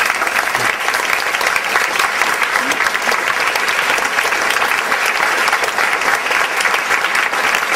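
Audience applauding steadily, a dense, even clapping from a large seated crowd.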